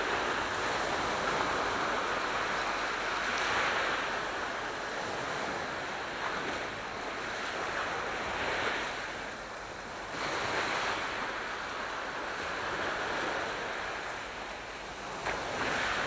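Aegean Sea surf: waves washing in, the rush of water swelling and easing every few seconds.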